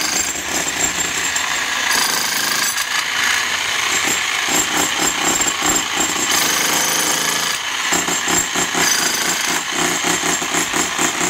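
Handheld electric demolition hammer (breaker) chiselling into a reinforced-concrete pillar, a continuous rapid hammering that chips the concrete.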